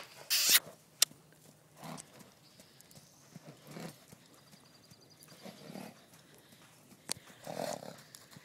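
A horse's hooves thudding softly and irregularly on arena sand as it canters loose. A short, loud rush of noise comes about half a second in.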